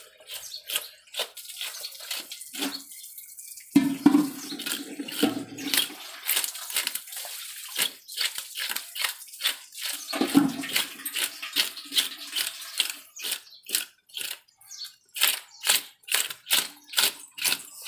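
A knife scraping the scales off a large carp: a fast run of short rasping strokes, about three a second, with brief pauses near three seconds and fourteen seconds.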